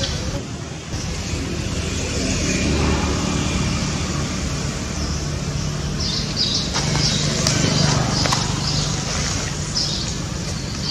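Steady outdoor background of a low traffic rumble with birds chirping; the chirps become more frequent about halfway through.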